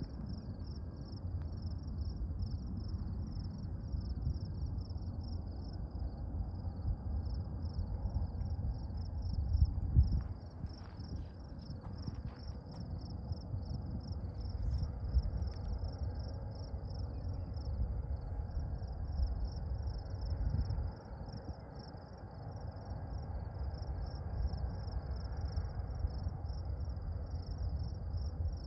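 Insects chirping in a steady chorus of rapid, even pulses, high-pitched, over a louder low rumbling noise that swells and fades.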